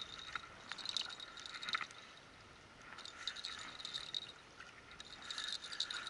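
Fishing reel being wound in, a light rattling whirr that comes in several short spells.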